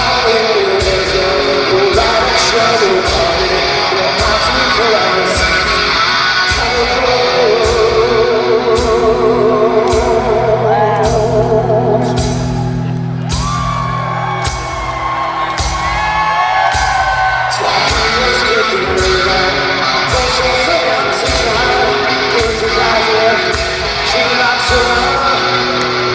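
A hard rock band playing live: distorted electric guitars, bass and a steady drum beat, with a singer's voice over them and the reverb of a large hall. The drums drop back for a few seconds about halfway through while the voice holds long gliding notes, then the full band comes back in.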